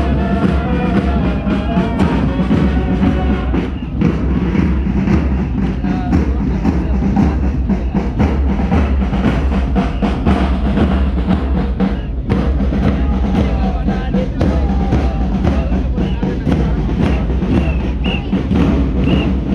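Marching band playing a march, bass drums and side drums beating steadily under a tune.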